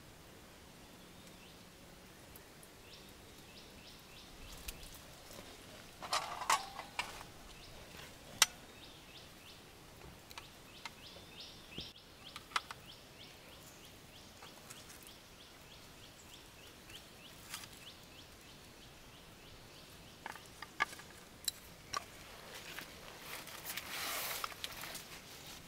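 Forest ambience: a rapid, evenly repeated chirping call from an insect or bird runs for most of the first half, with a few sharp clicks and knocks scattered through and a rustling noise near the end.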